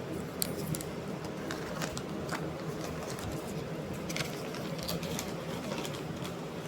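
Steady low hum with scattered faint clicks.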